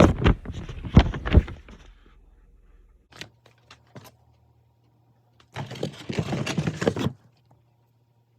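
Air-filter box and packaging being handled: a run of knocks and clicks, a couple of single clicks, then a rustling scrape that lasts about a second and a half.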